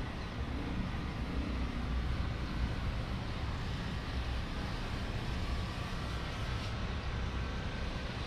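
Steady outdoor background noise with a low rumble, the sound of an urban street.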